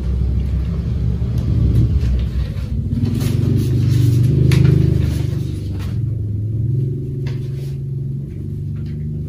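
A loud low rumble that builds to its peak about halfway through and then eases off, with a few faint crackles over it.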